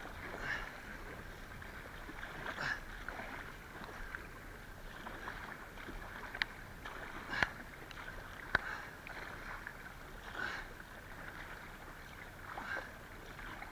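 Steady rush of river water, with a louder paddle swish every couple of seconds and three sharp knocks near the middle.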